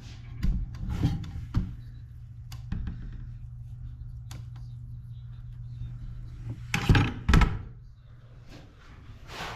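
A steady low hum with scattered knocks in the first few seconds, then two loud thumps about seven seconds in; the hum stops about a second after them.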